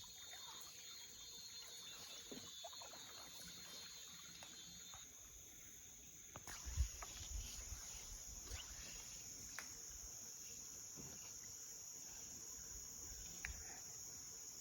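Faint steady high-pitched drone of insects, which grows louder about six seconds in. A brief low thump comes soon after.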